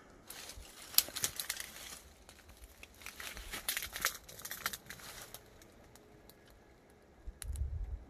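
Leaves and twigs rustling and crackling close to the microphone as the camera brushes through shrubbery, in two spells of a second or two each. A short low rumble near the end.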